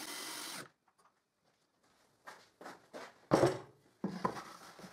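A cordless drill runs briefly, boring into a wooden jig board, and stops. After a pause come a few light wooden knocks and one louder knock about three and a half seconds in, as wooden battens are handled and set down on the board.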